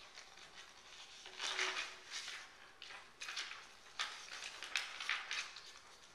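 Sheets of paper rustling and crinkling as they are handled close to a microphone, in several short, irregular bursts.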